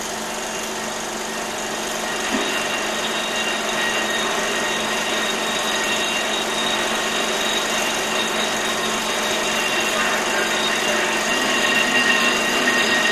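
Steady mechanical whir with a thin high whine over it, slowly getting louder: the machinery of a missile launch pad's service tower being driven back from an Atlas missile.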